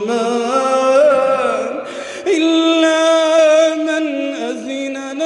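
A male reciter chanting the Qur'an in melodic tajweed style, drawing out long, ornamented held notes that bend in pitch. A brief break about two seconds in, then another long held note.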